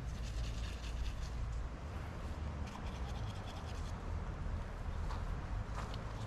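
Teeth being brushed: a rapid, scratchy scrubbing over a steady low rumble, with footsteps on gravel near the end.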